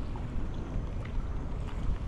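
Wind buffeting the microphone as a steady low rumble, with small waves slapping faintly against a plastic fishing kayak's hull.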